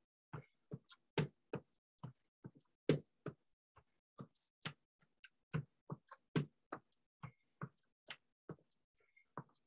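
Footsteps on a hard floor as feet step forward and back in a mambo step: short, irregular taps and thuds, about two or three a second.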